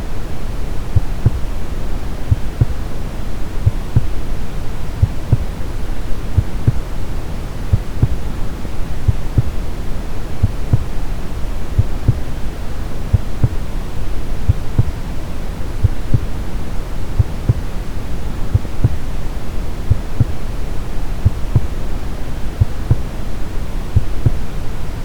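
Brown noise, a steady deep rushing hiss, with a slow, steady heartbeat of soft low thuds, often paired, repeating over it.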